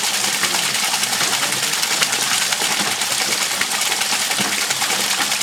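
Bicycle chain running over a chainring on a homemade generator: a steady whirring hiss with fine rapid clicking.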